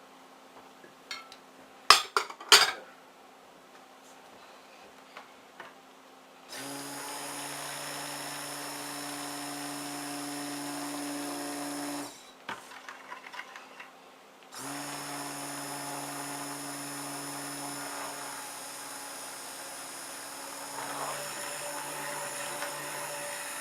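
Handheld stick blender motor running in two long bursts, about five and nine seconds, with a short pause between, mixing the cream into the soap oils. A few sharp knocks come a couple of seconds in, before it starts.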